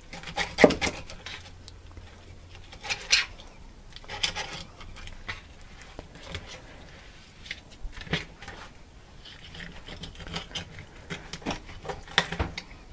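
Knife cutting a whitefish fillet away along the backbone and ribs on a plastic cutting board: irregular soft scrapes, clicks and wet taps, with a few sharper knocks of the blade and fish on the board.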